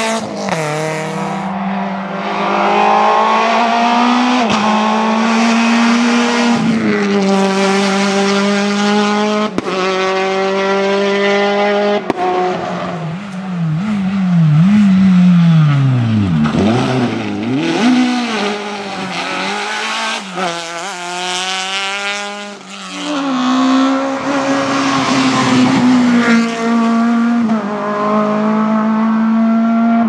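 Rally cars at full attack on a tarmac stage, one after another: engines revving hard, climbing through the gears and dropping away on lift-off and braking, with some tyre squeal.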